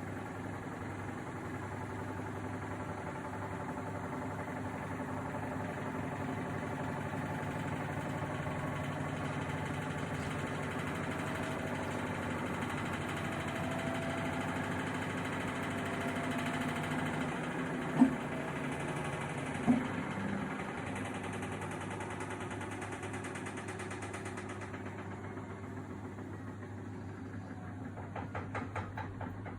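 Samsung WW80TA046AX washing machine drum spinning, with a steady motor hum and a gliding whine, two sharp knocks about 18 and 20 seconds in, and the sound easing off with a rhythmic beat near the end. These are the wobbling, squeaking and metal-on-drum noises the owner complains of, even with a light load.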